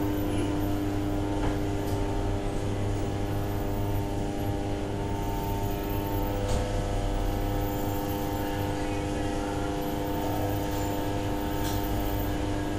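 Steady mechanical hum with several constant tones held level throughout, and a faint click now and then.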